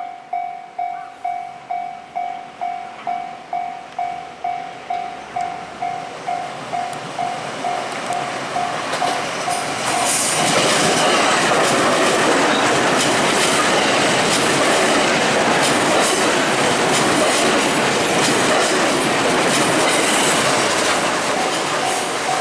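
Japanese level-crossing warning bell ringing in a steady electronic ding about twice a second. An electric commuter train then passes over the crossing with clattering wheels, drowning the bell for about ten seconds, and the bell is heard again near the end.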